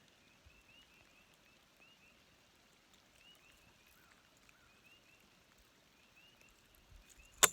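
Faint steady patter of rain with a calling animal giving a string of short rising chirps. One sharp, loud click comes near the end.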